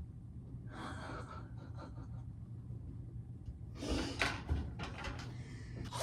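A person breathing out heavily, like a gasp or sigh, about a second in. A short burst of clicks and rustling handling noise comes about four seconds in.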